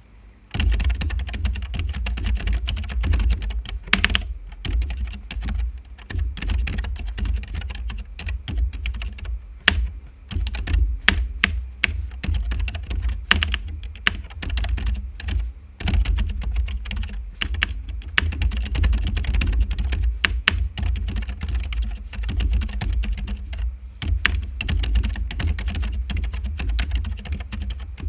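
Keychron K3 mechanical keyboard with linear white optical switches, typed on steadily and fast straight on a bare, hollow desk, with no desk pad. Rapid key clicks ride over a low resonance from the desk, with a few brief pauses.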